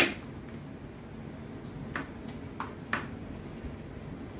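Plastic clicks of a Rubik's snake puzzle's segments being twisted: one sharp click at the very start, then a few lighter clicks about two to three seconds in.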